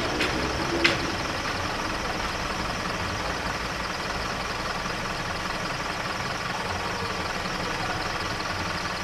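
Road vehicle engines idling steadily at a level crossing, with one sharp click about a second in.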